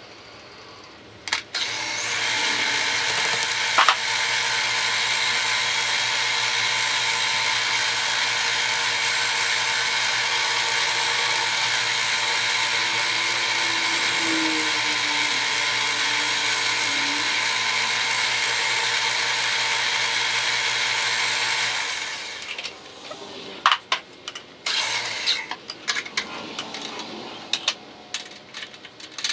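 Electric arc welding on a steel workpiece: a loud, steady hiss and buzz that starts about two seconds in and cuts off about twenty-two seconds in. Afterwards scattered clicks and clanks of metal being handled.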